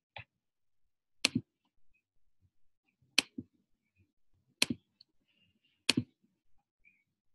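Sharp clicks from someone working a computer at a desk: five of them, spread over several seconds, several in quick pairs.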